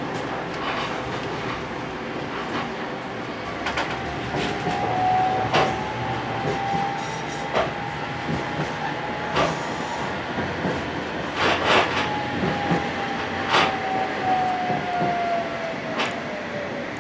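Tram running on its rails, heard from inside the car: a steady rolling rumble with sharp clacks every second or two as the wheels cross rail joints. An electric motor whine rises slowly in pitch, holds, then falls away near the end as the tram slows toward a stop.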